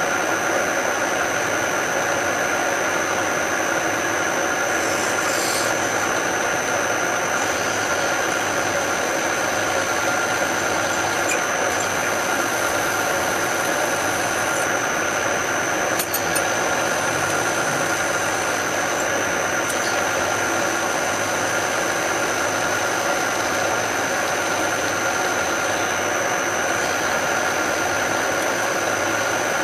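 Machine tool running steadily as a twist drill bores a hole in stainless steel, a continuous motor hum with a constant high whine.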